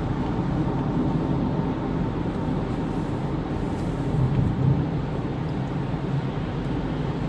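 A car's steady engine and road noise while driving.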